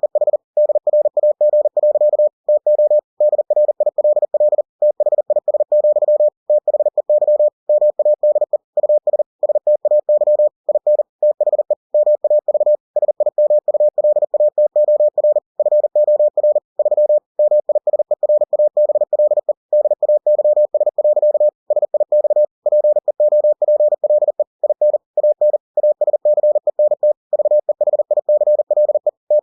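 Computer-generated Morse code (CW) at 40 words per minute: a single steady beep keyed on and off in rapid dots and dashes, with short gaps between letters and words.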